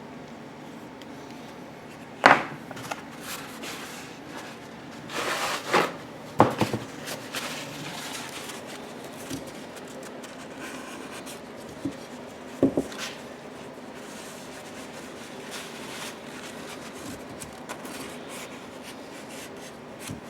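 Hands working small parts and tools on a bench while gasket sealant is spread on a generator valve-cover gasket: light rubbing with a few scattered sharp knocks and clicks, loudest about two seconds in and around six seconds, over a steady faint hum.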